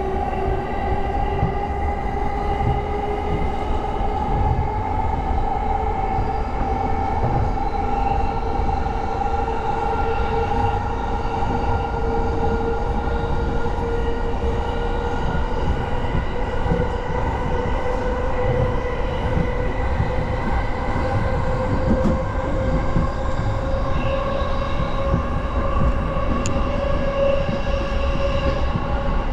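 E231 series electric train running, its traction motors whining in several stacked tones that rise slowly and steadily as it gathers speed, over a steady rumble of wheels on rail.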